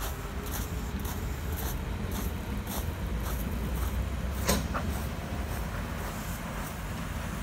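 Narrow-gauge steam locomotive chuffing slowly as it approaches, about two exhaust beats a second over a low rumble, with one sharp knock about halfway through.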